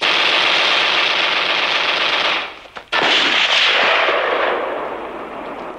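Automatic gunfire in two long, continuous bursts: the first stops after about two and a half seconds, and the second starts about half a second later and slowly dies away.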